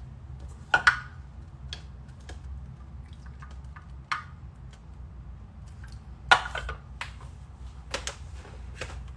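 Light kitchen clatter: scattered clicks and knocks of bowls, containers and utensils being handled, with two louder knocks about a second in and past the six-second mark, over a steady low hum.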